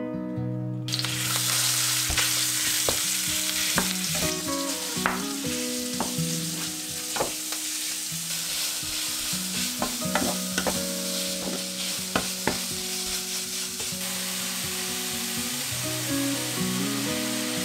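Minced pork sizzling as it fries in a pan, starting about a second in. A wooden spatula scrapes and taps against the pan as the meat is broken up and stirred.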